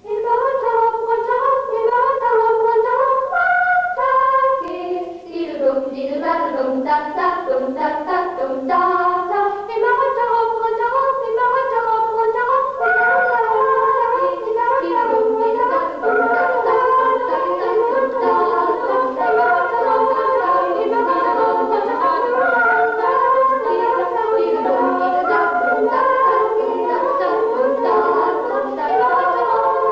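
Music: a group singing a melody in several parts, with no words picked out. It starts abruptly and fades out at the end.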